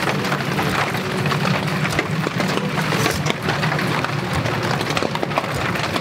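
Dense, steady patter of heavy rain, mixed with the light crackle of a freshly lit feather stick burning on split firewood.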